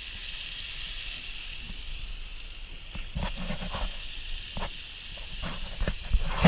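Fish fillets sizzling on a portable gas hotplate: a steady high hiss, joined from about halfway by scattered light knocks and clicks.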